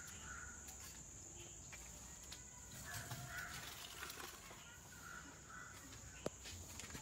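Faint outdoor ambience: scattered bird calls over a steady high-pitched drone, with one sharp click about six seconds in.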